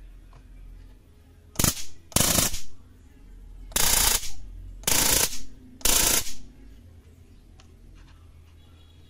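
Electric arc from a battery-powered high-voltage step-up (stun-gun) generator module, crackling across the gap between its two output wires. It fires five times, each burst lasting well under a second, as the push button is pressed and released.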